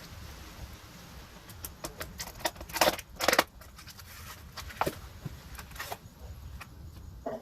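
Packaging being handled during an unboxing: irregular crinkles, rustles and clicks, with the loudest burst of crackling about three seconds in.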